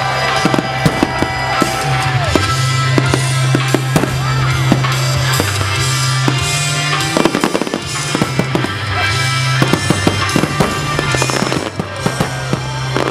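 Aerial firework shells bursting one after another with crackling, over music with steady low bass notes.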